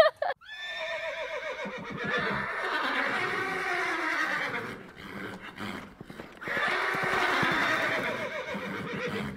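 Horse neighing: two long whinnies, the second beginning about six and a half seconds in.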